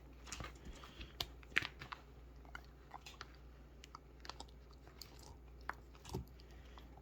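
A puppy gnawing on a big bone: faint, irregular crunches and clicks of teeth on bone.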